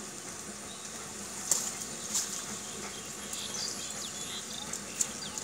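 Outdoor pond-side ambience: a steady high insect drone with a few faint chirps, and three brief sharp clicks about one and a half, two and five seconds in.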